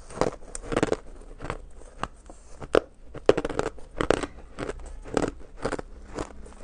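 Shaved ice being chewed and crunched in the mouth, close up: a run of irregular sharp crunches, loudest a little under three seconds in.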